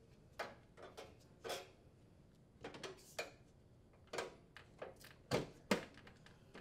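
Heat pump's indoor blower cover being set in place and seated on the blower housing: a series of light knocks, taps and rattles, the loudest two close together about five and a half seconds in.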